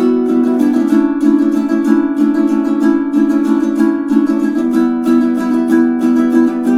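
Magic Fluke M20 tenor ukulele with Living Water strings in re-entrant baritone tuning (dGBE, high D), played as chords in a steady rhythm.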